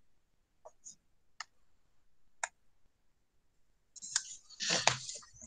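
Scattered clicks of a computer mouse and keyboard: a few single, sharp clicks, then a denser, louder cluster of clicks near the end.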